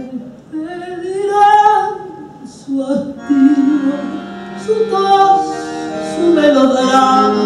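A woman singing a tango, her voice gliding and holding notes over instrumental accompaniment.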